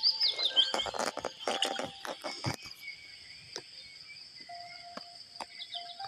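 A hooked fish splashing and thrashing at the water's surface in a quick run of splashes over the first two and a half seconds, then two single clicks. Birds chirp behind, and a steady insect trill runs from about halfway through.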